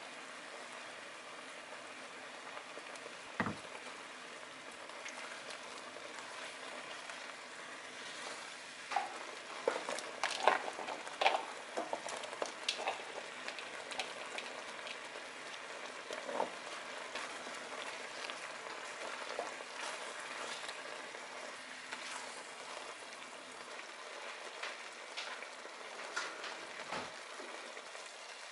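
Creamy rosé tteokbokki sauce simmering in a nonstick pan: a steady bubbling hiss with small pops. From about nine to thirteen seconds in comes a run of sharper clacks and plops as rice cakes are dropped into the sauce, and there are single soft thumps about three seconds in and near the end.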